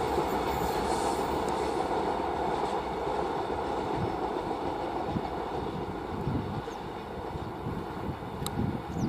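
Railway coaches of a diesel-hauled train rolling past on a sharp curve: a steady rolling rumble that eases slowly, with a few short low thumps in the second half.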